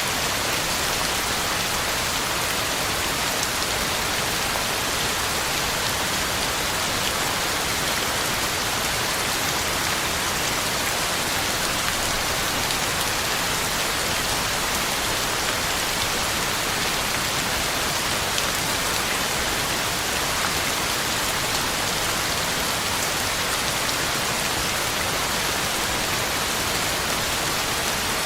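Heavy rain falling steadily on the ground and leaves, an even hiss of drops.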